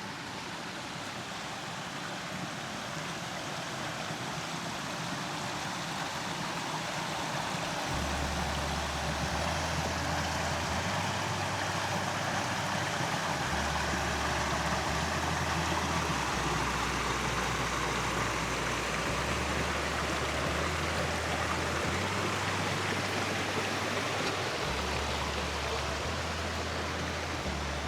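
Steady rushing noise like a creek, slowly getting louder. From about eight seconds in, a slow, stepping bass line of background music plays under it.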